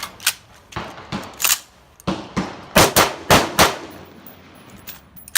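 Rapid gunfire from an AR-style pistol: about eight unevenly spaced shots in the first three and a half seconds, the loudest coming in a quick cluster near the middle.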